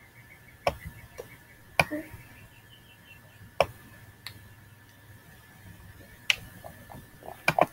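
Sharp computer mouse clicks, irregularly spaced a second or more apart, with a quick double click near the end, over a faint steady high-pitched whine.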